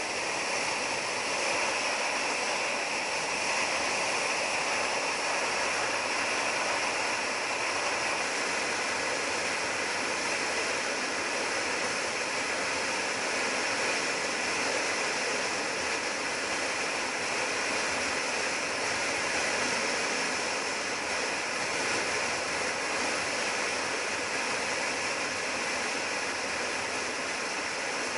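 Steady rush of wind and road noise from a motorcycle cruising at road speed, picked up by a camera mounted on the bike.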